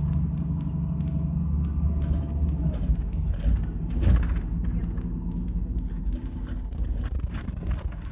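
Moving city bus heard from inside the cabin: steady engine and road rumble, with the cabin fittings rattling and a louder jolt about four seconds in.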